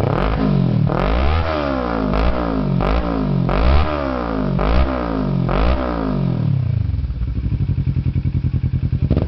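Kawasaki ER-6n 650 cc parallel-twin engine, fitted with a Roncar aftermarket exhaust, revved in about six quick throttle blips, each rising and falling in pitch. About seven seconds in it settles back to a steady, pulsing idle.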